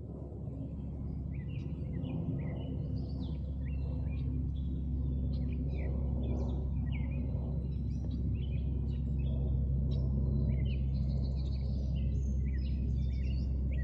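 Twin-turboprop airliner flying overhead: a low, steady droning hum with a few held tones that grows louder over the first few seconds and then holds. Small birds chirp and twitter over it throughout.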